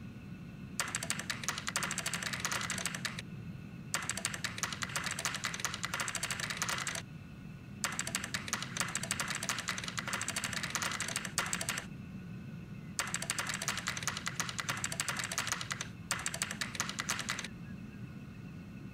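Rapid computer keyboard typing in five runs of a few seconds each, separated by short pauses, over a low steady hum.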